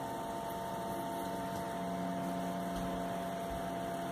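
Steady room hum from a running appliance or fan, with a few constant tones over an even hiss.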